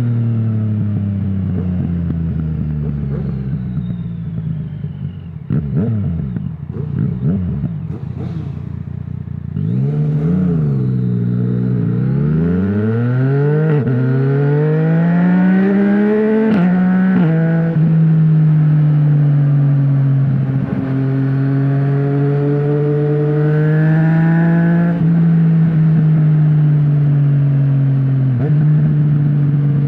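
Yamaha MT-09's inline-three engine through an Akrapovic full exhaust without a dB killer. It slows with the engine note falling over the first few seconds, then runs low and uneven with crackles for a few seconds. About ten seconds in there is a quick blip of revs, then it accelerates hard with rising revs, shifts gear around seventeen seconds in and holds a steady cruise to the end.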